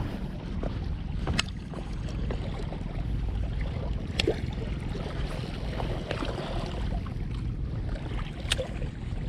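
Wind buffeting the microphone with water lapping against breakwater rocks, as a steady low rumble and hiss. Three short sharp clicks stand out over it, about a second in, near the middle and near the end.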